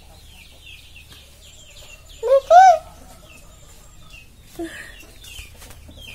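Chicks peeping over and over in short high falling chirps, with one louder two-note call a little over two seconds in.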